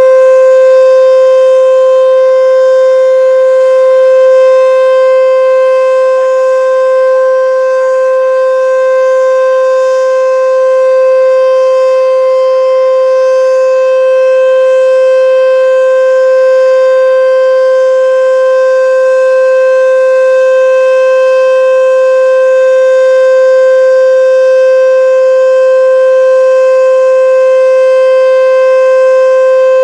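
H.O.R Super Sirex outdoor warning siren sounding its full alert signal: one loud, steady single tone held at a constant pitch, not dual tone.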